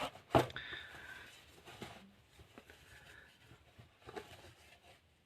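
Plastic parcel packaging being cut or torn open and handled, with one sharp snap about half a second in, then quiet crinkling and scraping that dies away.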